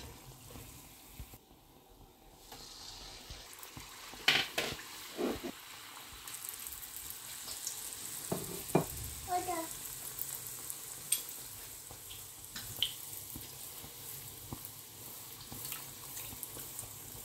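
A guror handesh, a jaggery and rice-flour cake, sizzling as it deep-fries in hot oil in a wok. Now and then a perforated metal skimmer clicks against the pan as it spoons oil over the cake.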